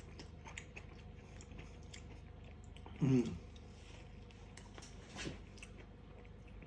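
A man chewing a bite of cloud bread pizza, with small soft crunching clicks. A short hum is heard about three seconds in.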